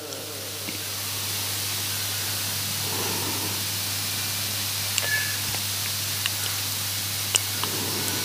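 Steady hiss of a close studio microphone with a low, even hum under it and a few faint clicks.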